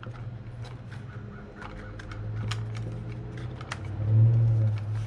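Wooden box parts clicking and tapping as a panel is worked into its slots, over a steady low droning hum that swells louder about four seconds in.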